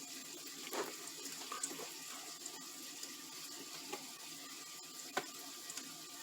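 Faint steady hiss with a few light clicks and taps, from handling the small plastic and metal parts of an extension cord's female end.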